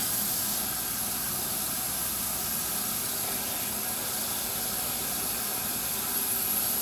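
Kitchen faucet running a steady stream of cold water, which splashes over a hand held under it.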